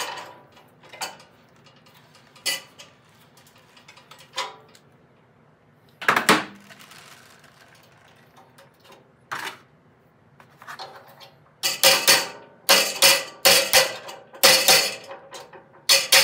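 Steel tools clinking and knocking against a steel shaft and frame, then a quick run of loud, sharp hammer strikes on the steel in the last four or five seconds, aimed at a thrust washer that is stuck and won't slide over.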